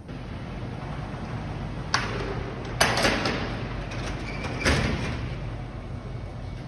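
A few sharp, echoing knocks and thuds from work equipment being handled at a service truck, over a steady background hum. The hard concrete of a parking garage makes each knock ring briefly.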